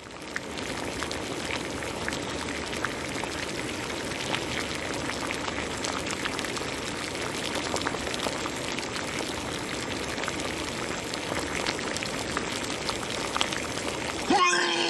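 Bubbling, boiling liquid sound effect: a steady fizz of bubbles, dotted with small pops. Shortly before the end, a brief louder sound that slides in pitch cuts in over it.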